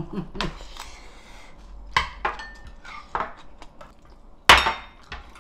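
Metal cutlery clinking against bowls and dishes at a meal table: a handful of separate clicks, the loudest about four and a half seconds in.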